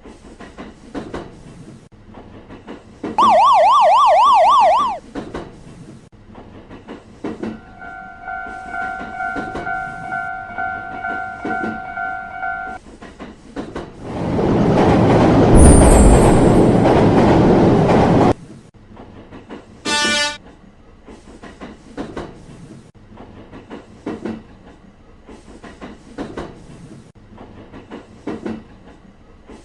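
Train sound effects: wheels clicking over rail joints throughout, a loud fast-warbling siren-like tone for about two seconds near the start, then a long steady horn-like tone. Midway a loud rush of a train passing lasts about four seconds, and a short burst follows soon after.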